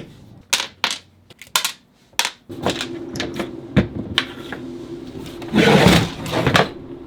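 Hands working on a sewing machine foot pedal and its wiring: a run of sharp clicks and knocks from small parts being handled, a loud scrape or rustle for about half a second near the end, over a steady low hum that comes in about two and a half seconds in.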